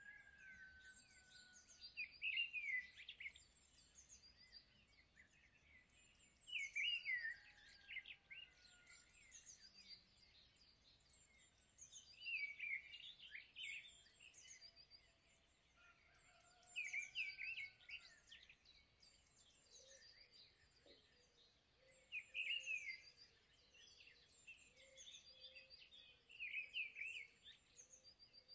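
Birds chirping in short bursts of rapid twittering, about every four to five seconds, over a faint steady hiss.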